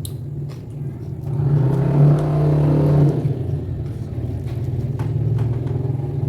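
A motor engine running steadily, louder for a stretch in the middle, with scattered small clicks over it.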